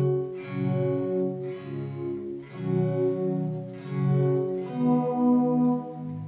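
A guitar-played melodic phrase sounding through a MidiPlus MIDI sound module, triggered by a Fishman TriplePlay guitar MIDI pickup. The synthesized voice is plucked and ringing, with a new note roughly every half second to a second.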